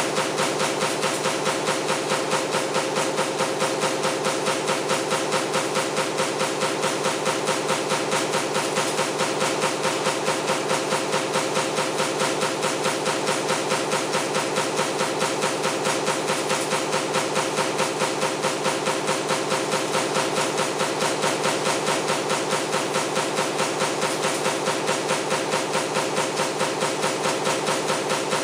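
A power press running a stamping die for table fan motor parts, punching continuously at a fast, perfectly even stroke rate. It makes a loud, steady mechanical clatter.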